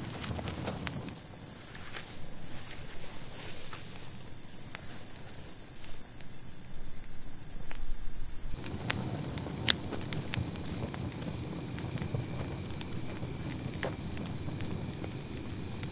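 Insects singing a steady high-pitched trill, which shifts to a lower steady trill about halfway through. Scattered sharp crackles from a wood campfire and a few scuffing footsteps on dirt are heard with it.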